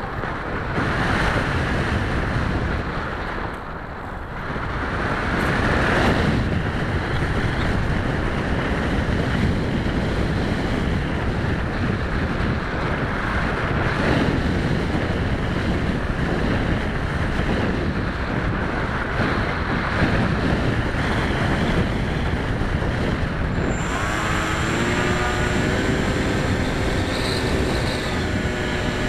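Wind rushing over the onboard camera microphone of an EPP foam FPV plane in flight, a steady noisy rush. Near the end the plane's electric motor comes through as a pitched whine that rises slightly and then holds steady.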